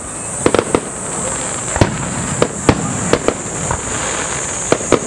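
Aerial fireworks shells bursting: a run of sharp bangs and crackles, the loudest a single bang about two seconds in, over a steady high-pitched hiss.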